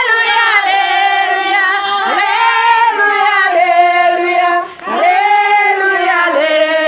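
Women singing a slow song in high voices, holding long notes that slide up at their start, with a short pause for breath just after the middle.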